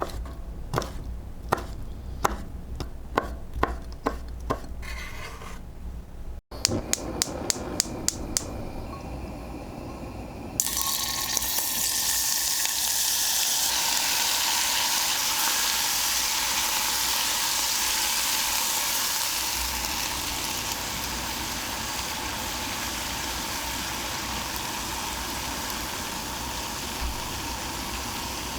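Knife chopping on a cutting board in steady strokes about two a second, then a quicker run of chopping. About ten seconds in, food goes into hot oil with a sudden sizzle that carries on steadily, easing a little later.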